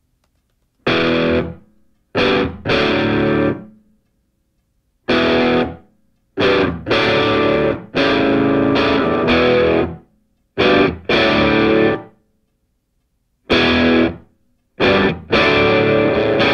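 Music: a distorted electric guitar playing loud chords in stop-start bursts, each a second or two long, with silent gaps between them.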